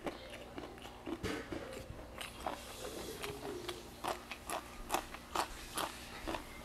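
A person biting and chewing crunchy raw green vegetables: a string of short crisp crunches that come quicker in the second half.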